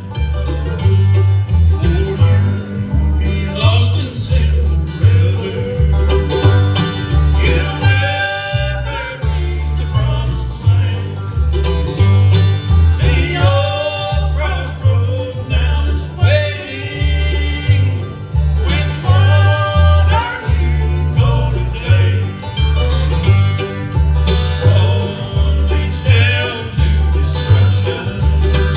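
Live bluegrass band playing a gospel song, with a steady bass beat under the melody.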